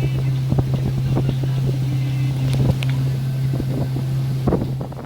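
Motorboat engine running with a steady low drone, under wind buffeting the microphone and irregular knocks. The sound eases off just before the end.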